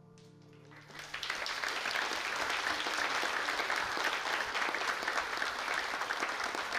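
Audience applauding, the clapping starting about a second in as the last held chord of the music dies away.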